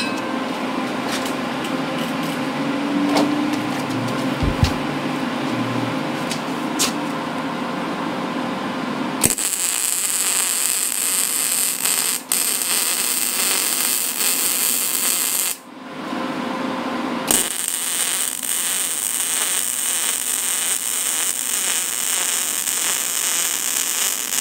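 Wire-feed welder arc crackling steadily as a bead is run joining a steel pipe column to its top plate, in two runs: the first starts about nine seconds in and stops around fifteen seconds, and the second starts a second or two later and stops near the end. Before the arc first strikes there is a steady hum with a few light clicks and knocks.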